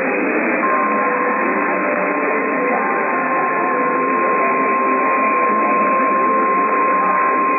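A NOAA Weather Radio 1050 Hz warning alarm tone comes in about half a second in and holds as one unbroken steady beep. It sounds over the hiss and faint voices of a weak, narrow-band radio signal. The tone signals that a warning broadcast follows.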